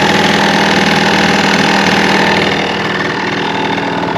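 Honda Live Dio ZX scooter's 50cc two-stroke single idling, with a rattle (kata-kata) from around the muffler, which the owner puts down to something loose in or on the muffler rather than a failed crankshaft bearing. It gets a little quieter about two and a half seconds in.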